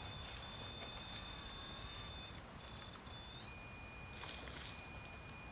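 Faint, steady, high-pitched whine of a couple of held tones. About three and a half seconds in, one tone slides and a lower one takes over. A brief rustling hiss comes a second later.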